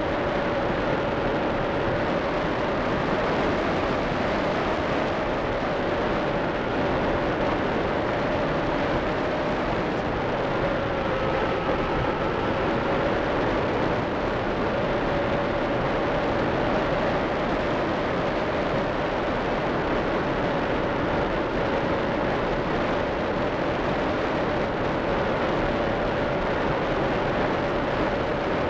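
In-flight noise of a radio-controlled ASW 15 model glider heard from its onboard keychain camera: a steady rush of air with a steady mid-pitched hum running under it the whole time.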